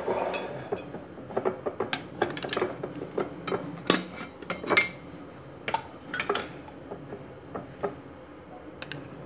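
Glass jar with a plastic strainer lid being handled on a stone countertop: scattered clinks and knocks as the lid is worked off and the jar is moved.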